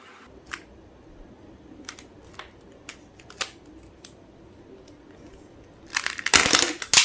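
Plastic 3x3 Rubik's cube, built without its core, clicking now and then as its layers are turned, then a loud burst of rattling clatter about six seconds in as the coreless cube comes apart.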